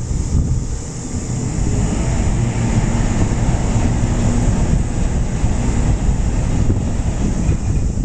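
Wind buffeting the microphone over the low, steady hum of the ferry Kakeroma's diesel engine as the ferry comes in to dock.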